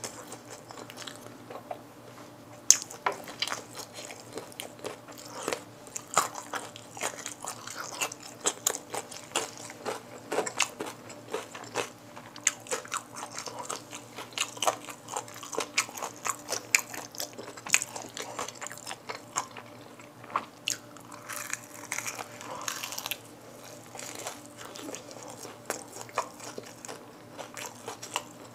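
A person biting and chewing crispy fried chicken (Kyochon Red Combo drumsticks and wings) close to the microphone: a steady run of short, crisp crunches.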